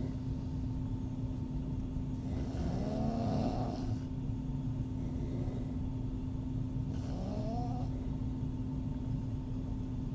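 A woman snoring with her mouth open: two wavering, pitched snores about four to five seconds apart, over a steady low hum.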